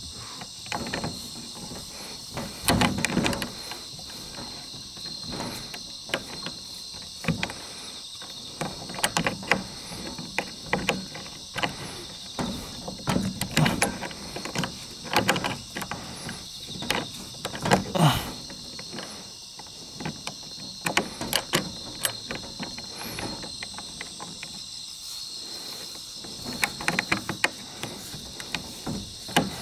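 Steady high-pitched chorus of insects, with irregular knocks, scuffs and rustles throughout.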